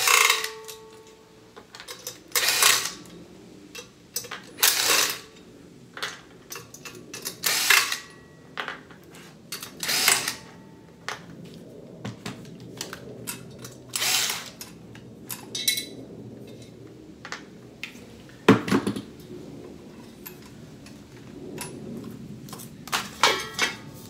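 Cordless drill-driver backing screws out of a ceiling fan's metal motor housing, running in short spurts every two or three seconds, with small metallic clinks of screws and parts being handled in between.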